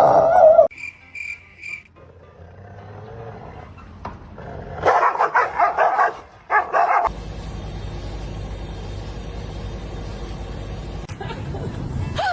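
A dog barking and crying in a few loud short bursts, with three short high beeps about a second in and a steady low hum through the second half.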